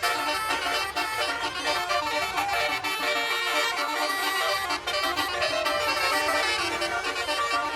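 Tour bus basuri telolet horn, a multi-tone musical air horn, playing a continuous tune, its notes stepping from pitch to pitch without a break.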